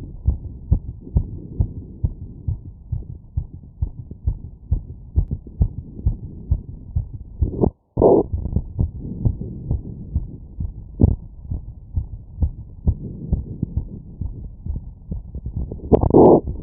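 Heartbeat heard through a stethoscope after exertion: a quick, steady run of low lub-dub beats. The sound cuts out briefly just before the middle, and short scraping noises come right after the gap and again near the end.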